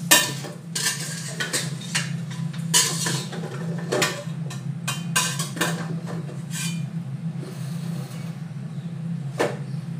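Metal ladle knocking and scraping against a stainless steel pot as chicken is stirred, a quick run of clanks in the first seven seconds and one more near the end. A steady low hum underneath.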